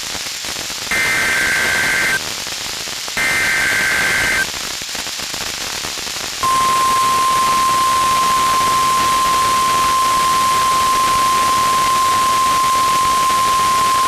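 NOAA Weather Radio Required Weekly Test tones over radio static. Two short, screechy SAME data bursts of about a second each, about a second apart, end a three-burst header. About 6.5 seconds in, the steady 1050 Hz warning alarm tone begins and holds.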